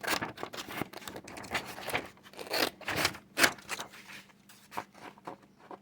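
Scissors cutting through a laminated paper sheet: a run of irregular rasping snips and clicks.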